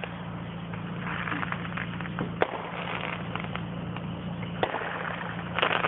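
Fireworks going off at a distance: crackling, with a few sharp bangs, the last of them close together near the end. A steady low hum from the car runs underneath.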